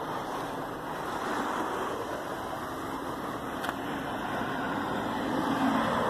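Road traffic going by, a steady wash of tyre and engine noise that swells toward the end, with one brief click about three and a half seconds in.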